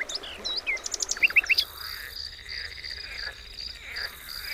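Wild birds chirping in quick, sharp calls, giving way about a second and a half in to a steady high, pulsing buzz with fainter calls behind it, like a tropical forest at a distance; it cuts off suddenly at the end.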